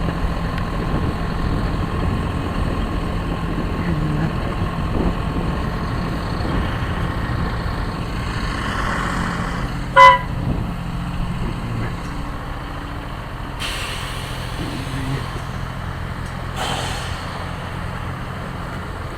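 Vehicle engine idling steadily, with one short, loud horn toot about ten seconds in.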